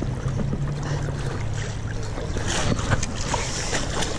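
River water sloshing and splashing around anglers wading thigh-deep, with a steady low wind rumble on the microphone and scattered small splashes throughout.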